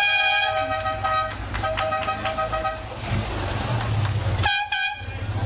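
A horn sounding in blasts over a steady low engine rumble: one long blast that ends about a second in, a second two-tone blast soon after, and a short toot near the end.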